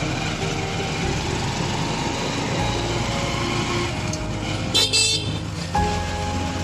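A vehicle's engine runs with road and wind noise while it moves along a lane. A short horn toot sounds about five seconds in.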